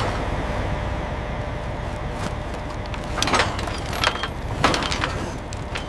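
A steady low mechanical rumble, with several sharp metallic clanks and knocks scattered through it from about two seconds in.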